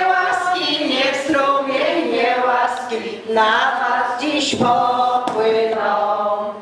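A group of women singing together without accompaniment, one of them into a hand microphone, their notes held and changing in a slow song melody.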